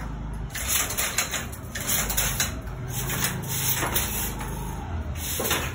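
Banarasi handloom with an overhead jacquard mechanism clattering as it weaves: a run of repeated wooden knocks and clacks at an uneven beat.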